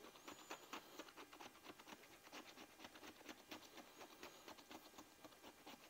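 Scratch-off lottery ticket being scratched: quick, faint scraping strokes, several a second, in an uneven rhythm.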